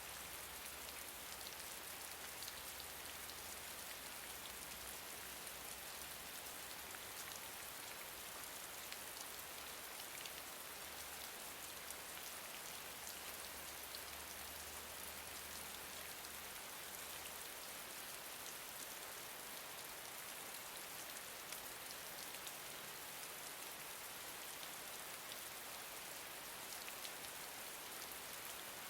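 Gentle steady rain: an even hiss with many small raindrop ticks.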